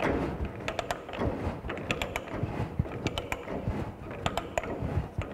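Ratcheting pipe die stock worked back and forth on a 1-inch pipe as the die cuts a thread: irregular runs of sharp clicks from the ratchet and the cutting.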